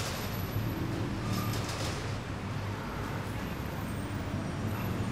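Street ambience dominated by a steady low rumble of road traffic, with a few faint clicks about a second and a half in.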